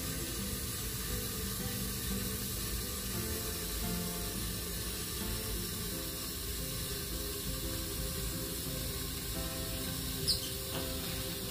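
Soft background music over a steady hiss of running water in a bathtub. There is a brief high squeak about ten seconds in.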